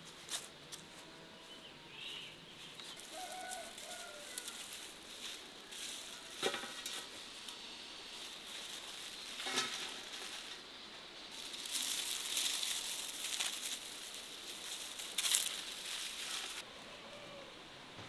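Dry, crackling rustle of dried wild sorrel braids being handled, with scattered sharp crackles that grow denser and louder in the second half and stop suddenly near the end. A few faint bird chirps sound early on.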